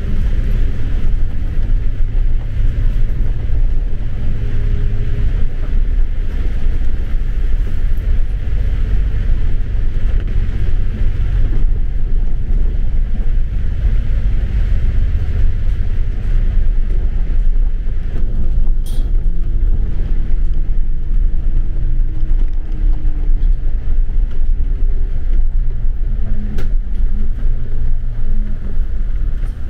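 Steady low rumble of a vehicle in motion, with a faint slowly falling whine in the middle.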